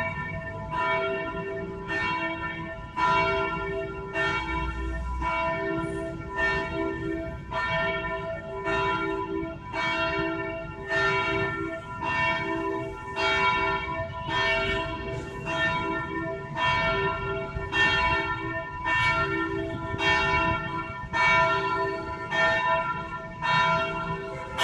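Church tenor bell ringing in steady repeated strokes, about one a second, each stroke's hum carrying on under the next.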